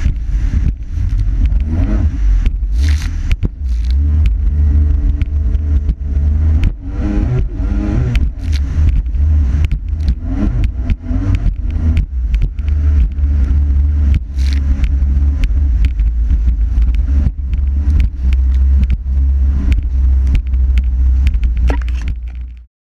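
Yamaha GP1300R jetski's two-stroke engine running at speed over choppy water, with many short knocks from the hull hitting the chop and wind on the microphone. The sound cuts off suddenly near the end.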